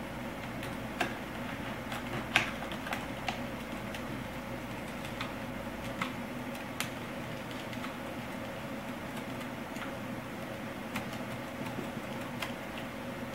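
Scattered light clicks and taps of small laptop parts being handled and fitted by hand, over a steady low hum.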